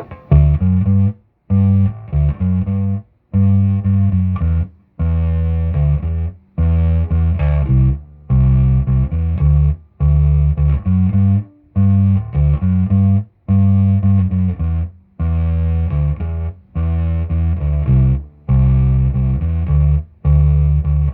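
Electric bass played through a Peavey 400 bass head with its fuzz at half and blended with the clean signal: a riff of loud, distorted low notes in short phrases, each cut off sharply by a brief silence.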